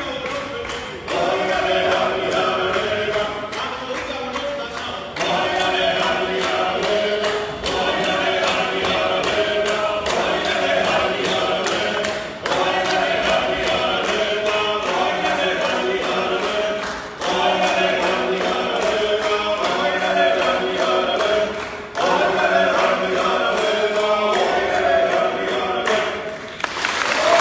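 Georgian men's folk ensemble singing a Meskhetian saperkhulo (round-dance song) a cappella in several voice parts, in phrases a few seconds long with short breaks between them. Handclaps keep time. Applause breaks out at the very end.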